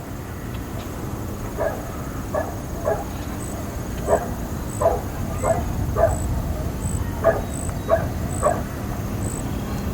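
A dog barking about ten times in short single barks, spaced roughly half a second to a second apart, over a steady low outdoor rumble. A faint high chirp repeats evenly about every 0.7 s from a few seconds in.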